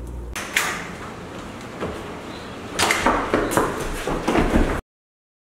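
A series of sharp knocks and clatters, several in quick succession, then the sound cuts off to dead silence just before five seconds.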